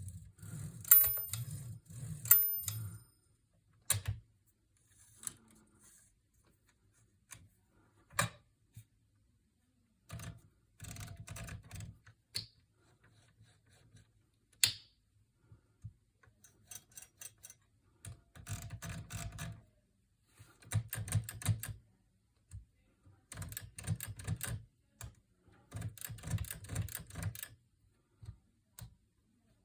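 1954 Smith-Corona Super manual typewriter being typed on: runs of keystrokes lasting a second or two, separated by pauses and single strokes.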